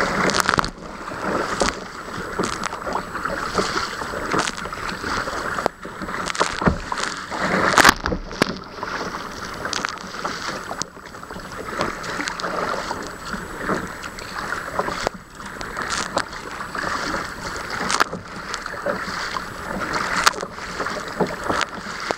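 Choppy sea washing over the bow and deck of a sea kayak, a steady rush of water broken by repeated sharp splashes and slaps as waves hit the hull, the hardest about eight seconds in.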